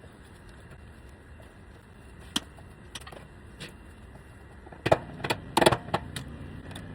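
Sharp metallic clicks and clinks from hand tools: pliers cutting and pulling off the dead supply wiring at an air compressor motor, with a cluster of louder clanks about five seconds in.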